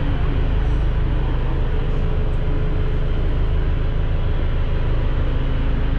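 Glass-bottom tour boat's engine running steadily underway, heard from on board: an even low drone with a faint steady hum above it.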